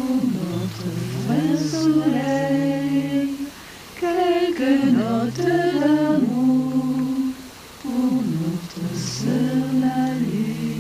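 A small group of people singing slowly and unaccompanied. It comes in three long phrases of drawn-out, held notes, with a short breath between each.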